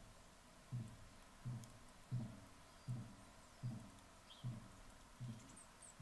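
Female red-bellied woodpecker pecking at a wooden suet log: a steady series of dull, low knocks, about one every three-quarters of a second.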